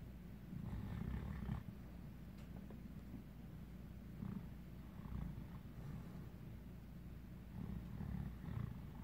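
Giant Alaskan Malamute snoring in its sleep: a low, rasping snore that swells about three times, each swell lasting around a second and coming a few seconds apart.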